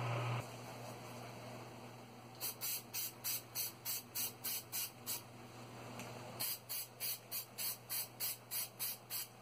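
Primer sprayed onto a brass photo-etch fret in short hissing bursts, about three a second: a run of about nine, a brief pause, then about ten more.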